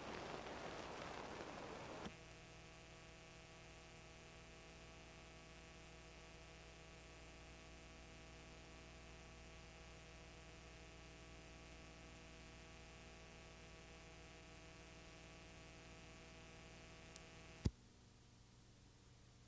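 Near silence: a faint steady electrical mains hum with light hiss, after a brief louder hiss in the first two seconds. A single sharp click comes near the end, and the hum stops with it.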